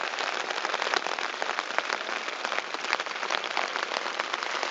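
Heavy rain falling on a tent's fabric, heard from inside the tent: a dense, steady patter of countless drop impacts.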